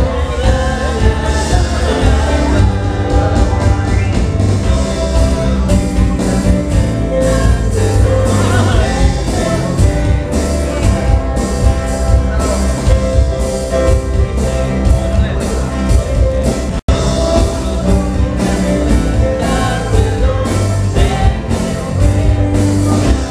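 Live church band playing a Spanish-language worship song, with voices singing over a drum kit. The sound cuts out for an instant about two-thirds of the way through.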